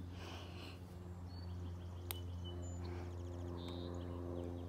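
A steady low hum runs throughout, with a few faint high bird chirps and a short trill over it, and a single light click about two seconds in.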